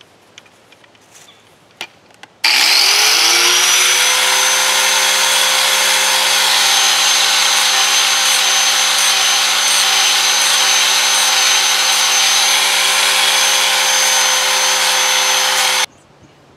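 Handheld electric angle grinder spinning up and grinding the sharp edges of a steel garden-hoe neck smooth. Its motor whine rises to speed, then holds steady under a loud grinding hiss for about thirteen seconds, and it cuts off suddenly near the end.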